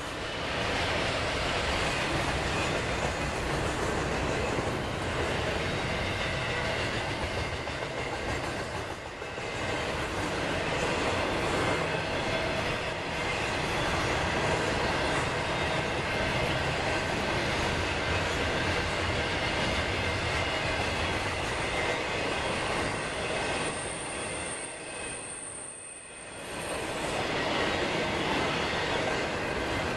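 Double-stack intermodal container train rolling steadily past, its steel wheels rumbling and clattering over the rails, with thin steady wheel squeal from the sharp curve. The noise drops briefly about 25 seconds in, then comes back up.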